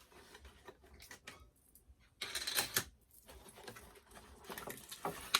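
Small plastic doll accessories and packaging being handled: scattered clicks and light taps, with a rustle lasting about a second near the middle.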